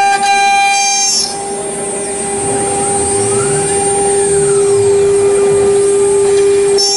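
CNC router spindle running with a steady high-pitched whine while its end mill cuts grooves into a plastic (PVC/ABS) vacuum-table plate. From about a second in until near the end a hissing cutting noise joins it, with tones that slowly rise and fall in pitch.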